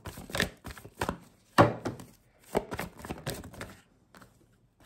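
A deck of oracle cards being shuffled by hand: a quick run of card snaps and slaps, with one louder knock about a second and a half in, tailing off near the end.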